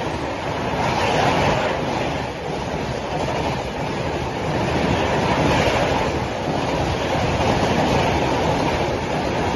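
New Delhi–Ranchi Rajdhani Express's LHB passenger coaches passing at speed close by, making a steady, loud rush of wheels on rails and air.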